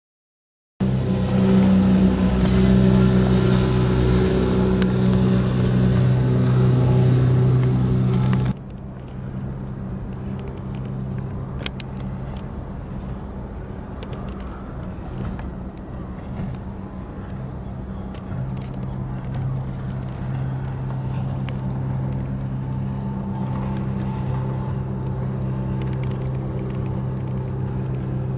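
Yamaha outboard motor driving a speedboat at speed, a steady engine drone that starts about a second in. The level drops abruptly about eight seconds in, and the drone grows slightly louder near the end.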